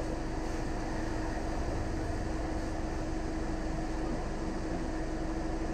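Steady mechanical hum with a constant low tone.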